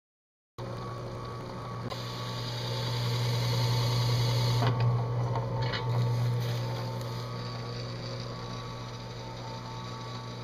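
Drill press motor running with a steady hum, its spinning abrasive pad grinding swirl marks into a metal dashboard insert, the grinding hiss rising and louder for a few seconds in the middle. The sound cuts out for about half a second at the start.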